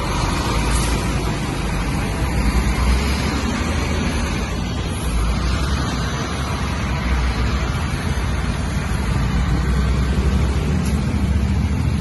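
Busy street traffic below: motorcycles, tricycles and cars passing, a steady low rumble of engines and tyres.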